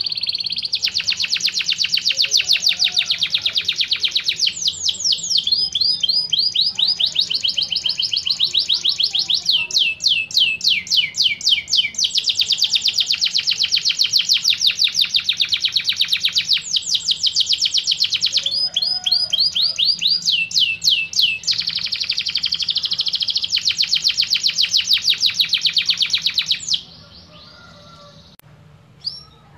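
Domestic canary singing in fast rolling trills: long phrases of rapidly repeated notes, some sweeping down in pitch. The song stops about 27 seconds in.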